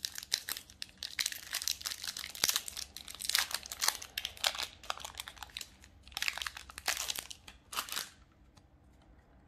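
Foil wrapper of a Magic: The Gathering Commander Legends Collector Booster pack being torn open and crinkled by hand: a dense run of sharp crackling that stops about eight seconds in.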